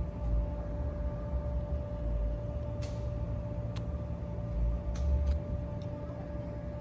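A few light clicks from hands working the AC charging hose and its fitting, over a steady hum and an uneven low rumble.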